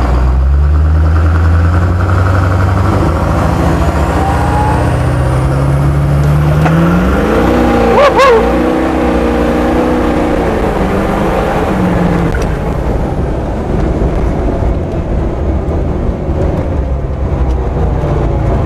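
Duramax V8 turbo-diesel in a converted Humvee at full-throttle launch, heard from inside the cab. The engine note climbs in pitch for about seven seconds with a faint high whistle rising alongside, a brief loud jolt comes about eight seconds in, and then the engine settles lower and its pitch falls away.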